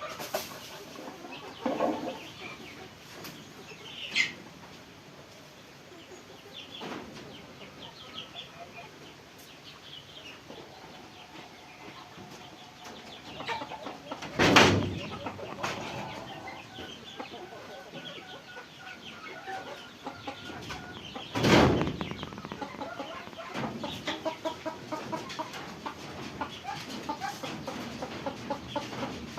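Chickens clucking on and off, with two loud knocks, one about halfway through and another some seven seconds later.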